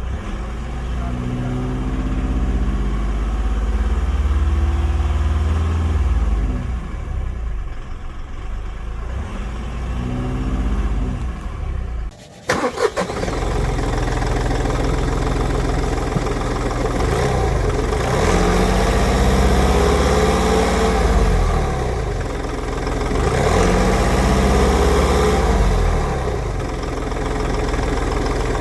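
VW Polo 1.4 TDI three-cylinder diesel engine (CUSA) revved up, held and let fall back several times, with a short break in the sound about twelve seconds in. The revving shows off a noise the owner calls a trombone noise with a little vibration. It comes in around 1800–2000 rpm once the engine is warm, with no fault codes and no cause found.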